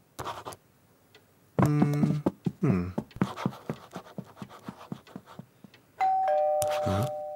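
Pen scribbling on paper in quick scratchy strokes, after a brief low humming voice. About six seconds in, a two-tone 'ding-dong' doorbell rings, the higher note then the lower, both fading out slowly.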